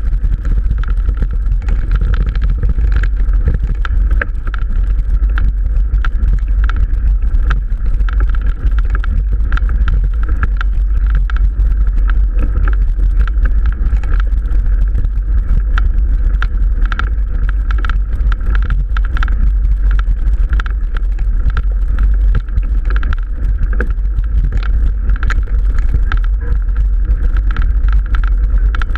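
Mountain bike riding over a rough dirt singletrack, heard through a bike-mounted action camera. Heavy wind rumble on the microphone runs under a constant rattle of irregular clicks and ticks from the bike on the bumpy track.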